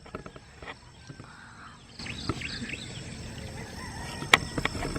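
Birds chirping over quiet outdoor background noise, with a few sharp clicks, the loudest a little after four seconds in.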